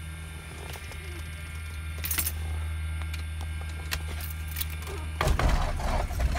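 Steady hum with a few clicks, then about five seconds in a Piper Arrow's fuel-injected Lycoming engine fires and catches on a cold start, turning into a louder, rough running sound.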